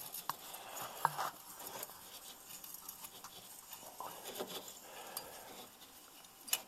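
Faint scattered clicks and light metallic taps as a steel threaded rod is turned by hand into a bolt hole in a snowmobile's secondary clutch, to spread the clutch sheaves.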